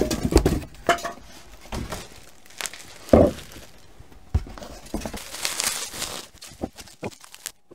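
Plastic bag and bubble wrap crinkling and rustling as a wrapped item is lifted out of a cardboard box and unwrapped by hand, with a dull thump about three seconds in.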